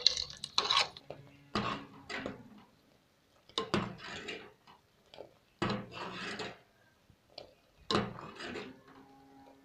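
A metal spoon scraping and knocking against the inside of a metal cooking pot as thick kadhi is stirred while it heats. The strokes are irregular, roughly one every second or so, each a sharp scrape with short quiet gaps between.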